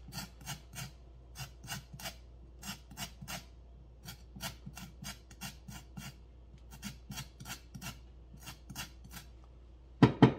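Chef's knife slicing carrots on a plastic cutting board: steady chopping, two or three cuts a second with brief pauses, ending in a couple of louder knocks.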